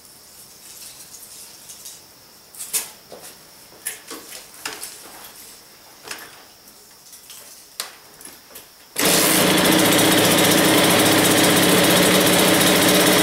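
A few light clicks and knocks, then about nine seconds in the Honda CR85R's 85 cc two-stroke single-cylinder engine comes in abruptly and runs steadily. The freshly rebuilt engine is starting easily and holding its idle.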